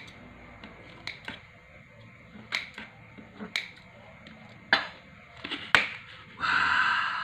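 Kitchen scissors snipping through a crisp-crusted baked pizza, a sharp snip every second or so, some in quick pairs. Near the end comes a louder, longer rasping noise.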